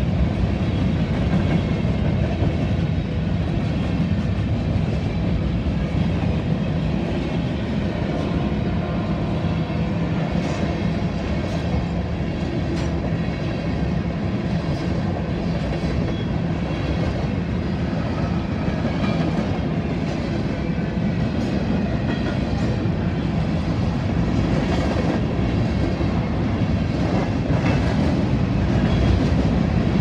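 Covered grain hopper cars of a freight train rolling past close by: a steady rumble of wheels on rail, with irregular clicks as the wheels cross rail joints. The clicks become frequent from about ten seconds in.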